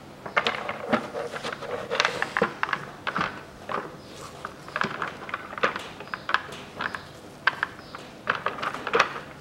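Plastic air filter housing cover being pressed and worked into place over a new air filter: a string of irregular plastic clicks and knocks with gloved-hand rubbing.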